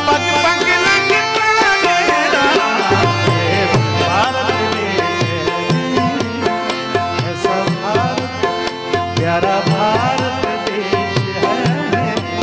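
Instrumental passage of Indian devotional music: tabla keeps a steady rhythm under a melody on electronic keyboard and harmonium, with some sliding notes.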